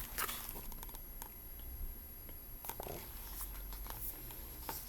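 A few light clicks and paper rustles from the pages of a picture book being handled and turned.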